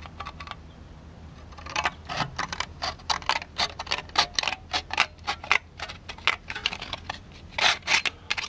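Scissors cutting thin galvanized sheet metal: a quick, irregular run of sharp metallic snips and clicks that starts about two seconds in.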